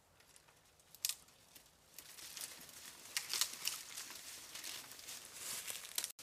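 Branches and dry leaf litter rustling and crackling as someone pushes through brush on foot, with a sharp click about a second in and thicker rustling from about two seconds on.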